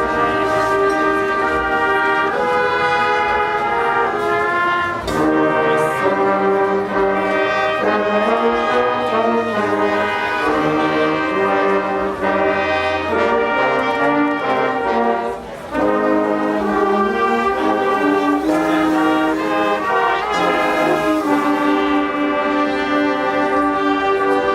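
Brass orchestra playing a piece in held chords that shift every second or so, with a brief break about fifteen seconds in.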